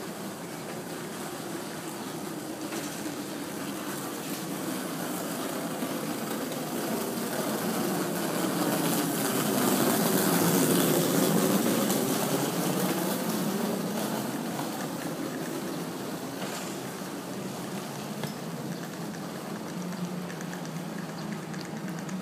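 Road traffic: a vehicle passes along the road, its noise swelling to its loudest about halfway through and then fading away.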